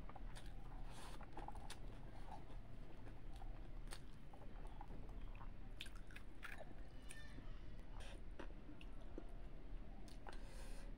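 A person chewing a large mouthful of rice eaten by hand, with many short wet mouth smacks and clicks.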